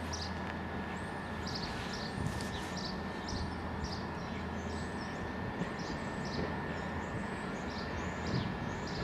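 Low, steady diesel rumble of a slowly approaching Network Rail multi-purpose vehicle, with small birds chirping repeatedly over it, about twice a second, and a faint steady high tone underneath.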